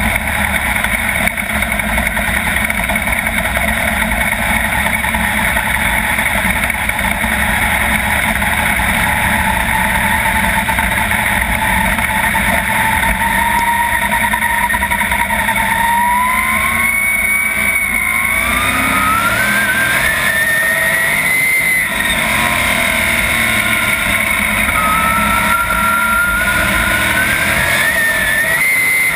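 Onboard sound of a 410 sprint car's V8 engine running in a pack of sprint cars. It holds a steady pitch for the first half, then climbs in pitch as it accelerates, backs off and climbs again several times near the end.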